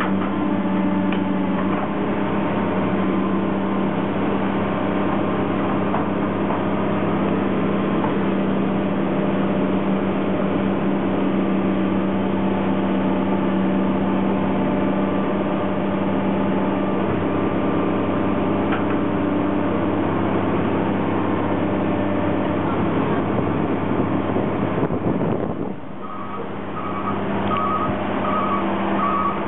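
Heavy diesel construction machinery running steadily at a street excavation, its engine drone dipping briefly near the end. A reversing alarm then starts beeping, a repeated two-tone beep, as a machine backs up.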